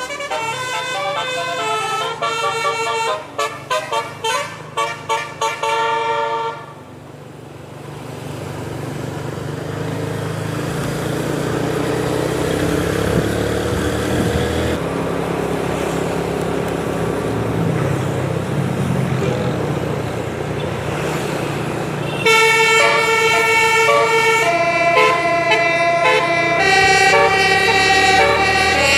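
A 12-note basuri 'telolet' bus horn plays a quick melody of changing notes, ending in a run of short staccato blasts. Then a steady rush of vehicle and road noise grows louder for about fifteen seconds. About three-quarters of the way through, the horn melody starts again.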